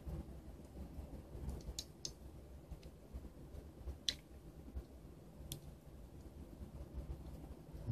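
Small plastic USB card reader casing being handled and fitted back together by hand: about five faint, scattered plastic clicks, the sharpest about four seconds in, over low rubbing of fingers on the case.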